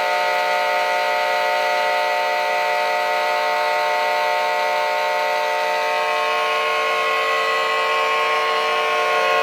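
A steady alarm tone, several pitches sounding together, held without a break.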